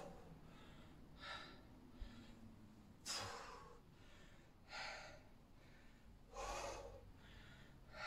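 A man breathing hard during a set of bodyweight squats: a short, forceful breath about every one and a half seconds, in time with the squats.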